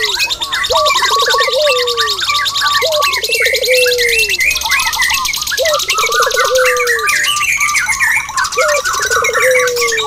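Several birds calling at once: a dove's rolling coo, a short note, a quick trill and a long falling note, comes four times over dense chirping and a fast, high trill that runs on without a break.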